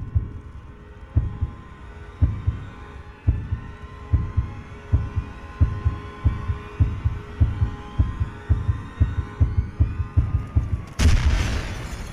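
Intro sound design: a heartbeat-like thumping that speeds up steadily over a rising drone. About eleven seconds in it ends in one loud hit that fades away.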